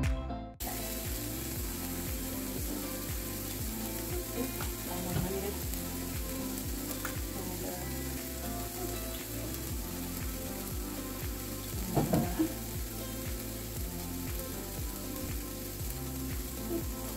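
Turkey meatballs sizzling steadily as they brown in a skillet.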